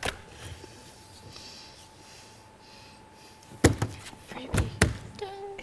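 A few sharp knocks in a quiet room, over a faint steady hum.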